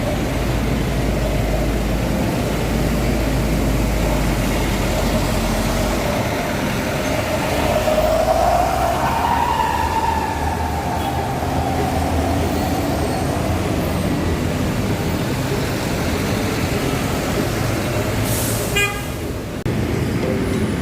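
Transjakarta city bus passing on a busy street, engine and traffic noise steady, with a whine that rises and then falls about halfway through. A short beeping sound comes near the end.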